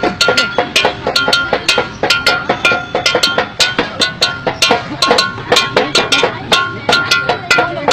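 Music with a fast, steady percussion beat and short repeating melodic notes.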